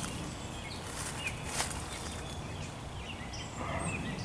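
Small birds calling in the woods, short high chirps scattered through, with two sharp clicks a little after a second in.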